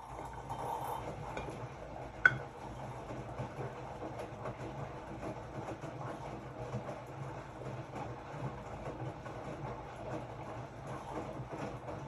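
Hotpoint-Ariston RSG 825 J washing machine running, its drum turning with a steady rumble that starts abruptly, and a single sharp click about two seconds in.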